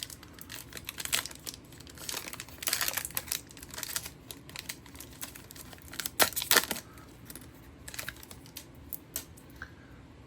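A 2024-25 Upper Deck SP Authentic hockey card pack wrapper crinkling and tearing open by hand, with many short crackles and two louder rips about six seconds in.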